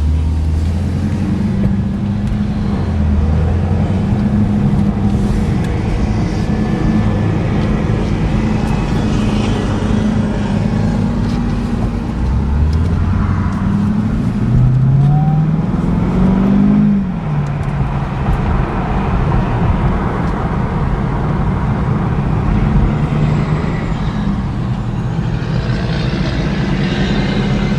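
The 2011 Cadillac CTS-V coupe's supercharged 6.2-litre V8 is heard from inside the cabin while driving, running steadily with road noise. About halfway through, the engine pitch rises as the car accelerates, then drops sharply at a gear change.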